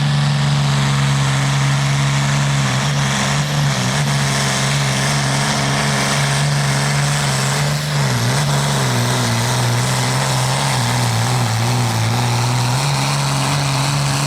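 Light pro field pulling tractor's engine running hard at high revs through a pull, a loud steady drone whose pitch dips briefly about three seconds in and sags and wavers from about eight seconds on.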